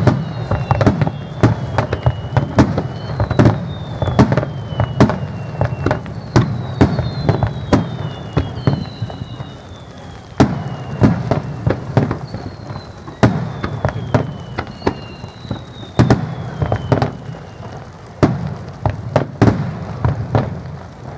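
Fireworks display: a rapid barrage of aerial shell bursts, bang after bang, over a steady low rumble. Several whistles fall in pitch over the bangs.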